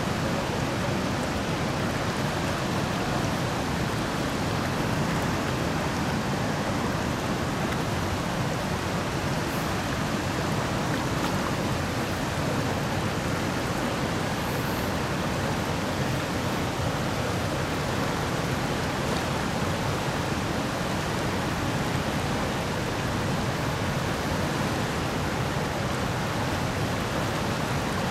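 Steady rush of river water flowing fast through shallow riffles, an even noise without breaks.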